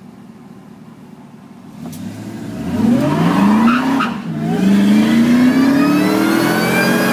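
2001 Ford SVT Lightning's supercharged 5.4-litre V8 accelerating hard through a custom exhaust, with a supercharger whine over it. The engine note climbs in pitch from about two seconds in, dips at an upshift around four seconds, then climbs again.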